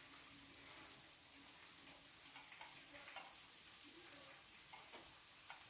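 Salmon fillets frying in butter in a pan over low heat: a faint, steady sizzle with small crackles.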